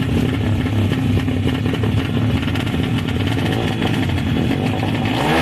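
Drag-racing motorcycle engine running with a steady low rumble of rapid firing pulses, its pitch starting to rise right at the end.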